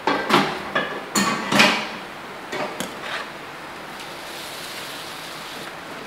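Metal clatter of a built-in oven's door being pulled open and a metal baking tray taken out over the rack: a quick run of sharp knocks in the first two seconds, then a few lighter knocks about a second later.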